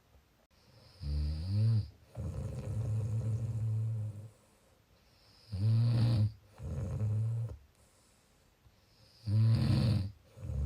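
Snoring: three breaths about four seconds apart, each a loud snore that rises slightly in pitch followed by a second, steadier breath sound; the first breath's second sound is the longest, about two seconds.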